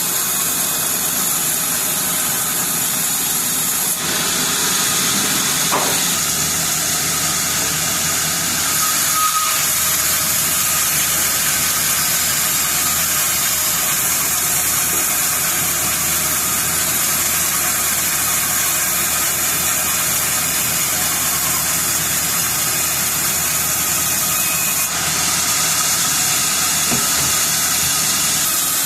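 Sawmill saw machinery running steadily: a loud, continuous noise with no pauses. Its character changes abruptly about four seconds in and again near the end.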